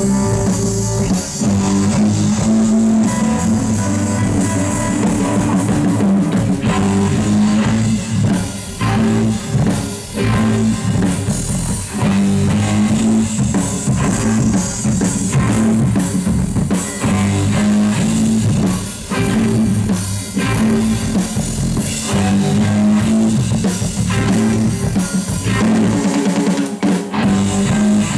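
Live electric blues-rock band playing: electric guitar, electric bass and drum kit in a driving boogie groove, loud and continuous.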